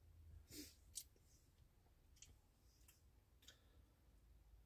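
Near silence broken by a few faint, scattered clicks, the sharpest about a second in, from a metal spoon against a steel compartment food tray.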